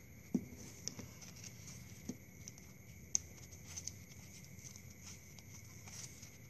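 Faint, scattered clicks and rustles of plastic drinking-straw palm fronds being handled and fitted around a taped foam trunk.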